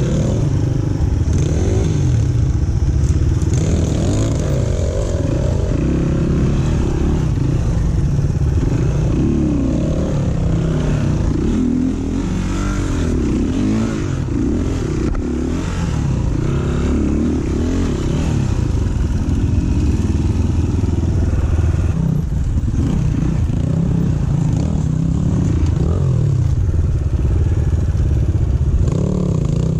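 Single-cylinder dirt bike engine running under way off-road, the revs rising and falling constantly as the throttle is worked.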